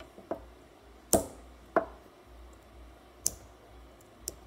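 Sharp clicks and taps of a metal compass point prying at the top of a 9-volt battery's casing to pop it open, five in all, the loudest about a second in and just before two seconds.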